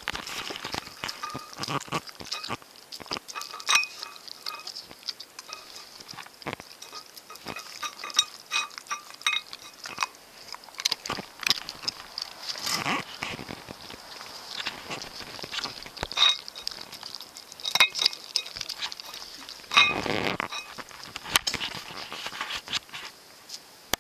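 Dog eating wet food from a metal dish: licking and chewing, with many short sharp clicks and smacks.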